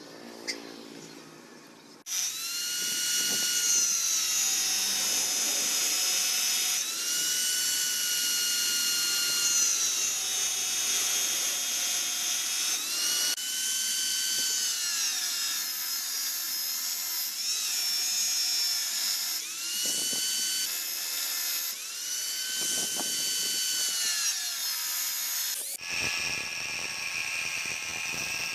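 A small high-speed motor whining, starting abruptly about two seconds in. Its pitch dips and climbs back several times, as if loaded and released. Near the end the sound changes abruptly to a harsher, noisier whine.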